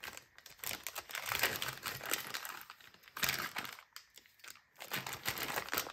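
Hands rummaging through small hardware: irregular crinkling and rustling with light clicks of small parts, coming in short bursts with brief pauses.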